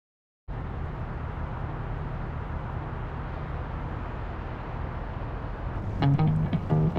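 Steady city-street ambience with a low traffic rumble, starting about half a second in. Near the end, plucked-string music comes in.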